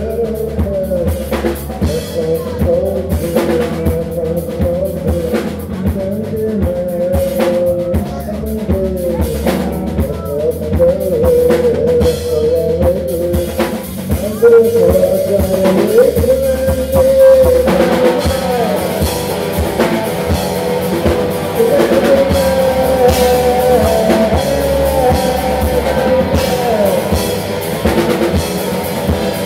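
Live rock band playing: a drum kit with electric guitar and bass guitar. The sound grows fuller and brighter about two thirds of the way through.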